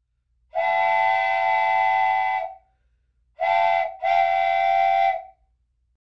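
Train horn sounding a steady multi-note chord in three blasts: a long one of about two seconds, a short one, then a long one that follows almost at once.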